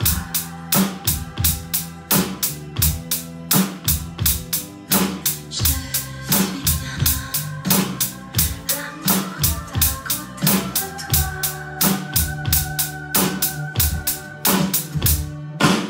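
Electronic drum kit played in a steady beat, bass drum and snare strokes about four a second, over a backing track with a bass line and other pitched parts.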